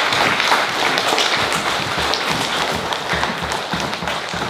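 An audience applauding, dense clapping that begins to fade near the end. Low thuds about twice a second run underneath it, fitting footsteps on the wooden stage.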